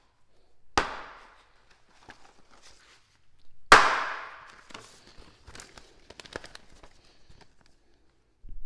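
Damascus steel knife chopped down through a paper booklet onto a cutting mat: two sharp chops, about a second in and near four seconds in, the second louder, followed by crackling and rustling of the cut paper. A low rumble starts just before the end.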